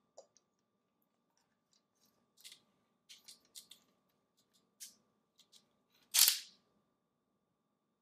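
African grey parrot working a plastic dishwasher-rack stick with its beak on a tile floor: scattered sharp plastic clicks and taps, about a dozen in all, with one much louder sharp clack about six seconds in.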